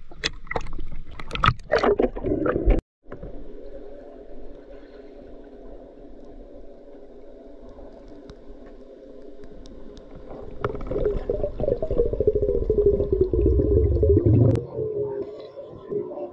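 Water splashing at the surface as a spearfisher ducks under, then after a brief cut, the muffled, steady hum heard underwater through an action camera's housing. About ten seconds in it swells into a louder rapid flutter with a slowly falling tone, then eases off near the end.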